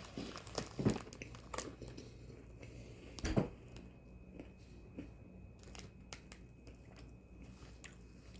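Someone biting and chewing crunchy Oreo sandwich cookies: scattered short crunches and clicks, with one louder thump about three seconds in.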